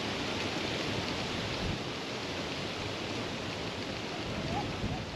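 Freight train tank wagons rolling past on narrow-gauge track: a steady rushing noise with a low rumble underneath.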